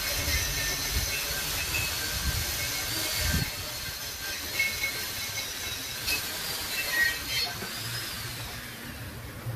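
Steady hiss of workshop background noise, with faint high whines wavering above it and a few soft knocks.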